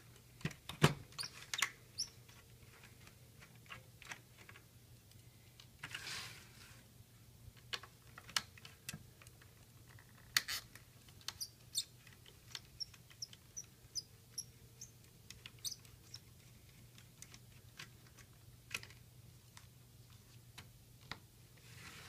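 Scattered small clicks and taps of a screwdriver and small metal parts while the screws holding the faceplate of a BMW E46 CD53 radio are taken out, with a short rustle about six seconds in and a few faint high squeaks around the middle. A faint steady hum lies underneath.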